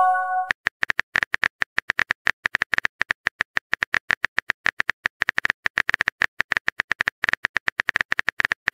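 Simulated phone-keyboard typing clicks from a texting-story chat animation: a rapid, uneven run of short sharp taps. It opens with the tail of a short pitched chime, the sound of a message being sent.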